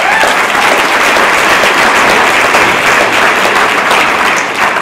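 Audience applauding: dense, steady clapping from a large crowd.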